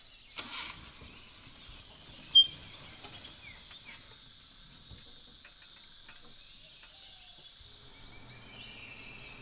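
Forest ambience: a steady high buzz of insects, with one short, sharp high chirp about two seconds in.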